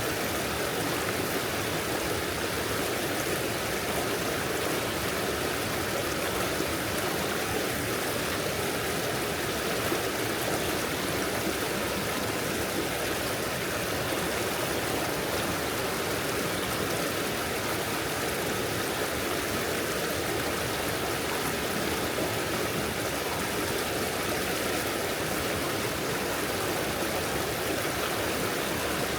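Stream flowing over stones, a steady babbling rush of water with no breaks.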